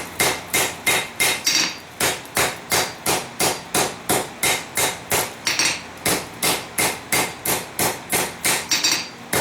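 Hand hammer striking a stainless steel forge-welding canister on the anvil in quick, even blows, about three a second. The hammering consolidates the steel packed inside the canister.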